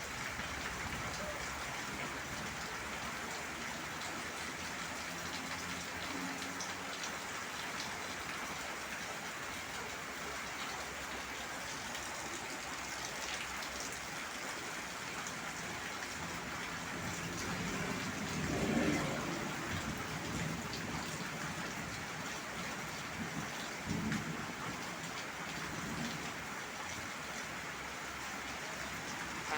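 Heavy rain falling steadily, a dense even hiss of drops on surfaces. A brief low rumble rises and fades a little after halfway through.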